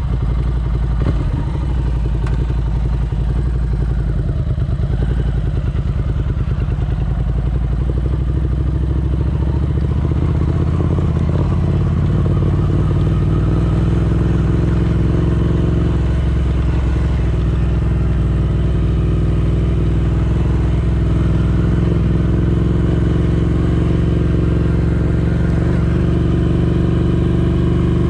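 Ducati Scrambler Desert Sled's air-cooled 803 cc L-twin engine running steadily, its pitch holding nearly even.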